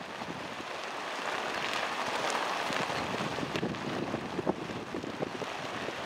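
Wind blowing steadily, with leaves rustling and many small crackles.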